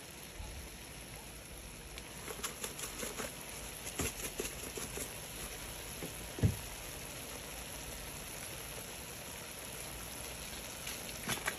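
Chicken simmering in a little water and oil in a metal pot, a steady faint sizzle, with scattered light ticks and rattles as seasoning is shaken on. A single knock about six and a half seconds in is the loudest sound.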